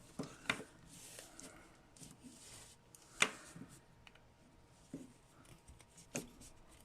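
Faint clicks and taps of a hard plastic action-figure hand being handled and pried at, with one sharper click about three seconds in.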